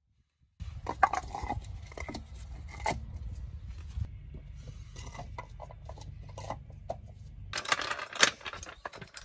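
Plastic wheel chocks being knocked and scraped into place against a tyre on concrete: scattered clicks and knocks over a low rumble of wind on the microphone. Near the end, a louder, denser clatter of hard objects being handled.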